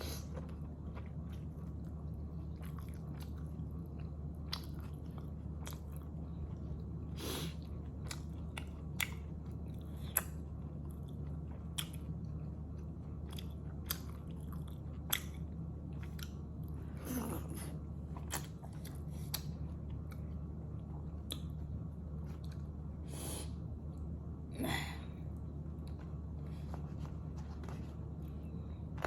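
A person chewing momo (steamed dumplings) close to the microphone, with many small wet mouth clicks and a few longer slurps, over a steady low hum.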